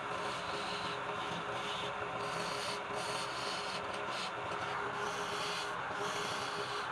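Sanding on a wood lathe: abrasive rubbing against the spinning wood, the scratchy noise swelling and easing in strokes of about a second, over the steady hum of the lathe motor.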